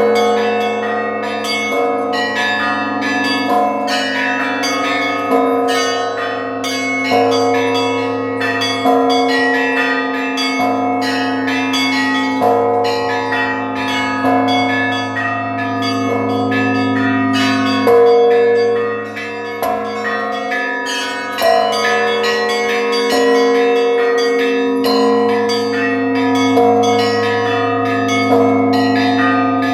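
Russian Orthodox church bells rung as a zvon: small bells chime rapidly over middle bells, while heavier strokes come about every second and three-quarters over a sustained low hum. The ringing briefly thins just after the middle.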